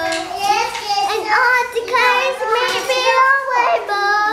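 A young girl singing solo in a high voice, holding long notes that slide up and down in pitch.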